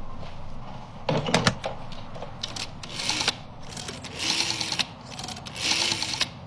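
Black rotary desk telephone being dialled. A few knocks about a second in as the handset is picked up, then the dial whirs and clicks back three times, once after each digit.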